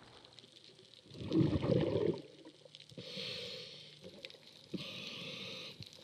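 Scuba diver breathing through a regulator underwater: a loud rush of exhaled bubbles about a second in, then two softer hisses of inhalation.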